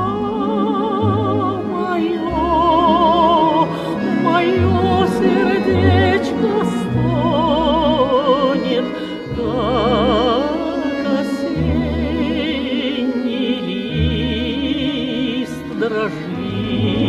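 A solo voice singing a slow Russian folk song in a classical, operatic style, holding long notes with wide vibrato, over instrumental accompaniment with a bass line that changes note every second or so.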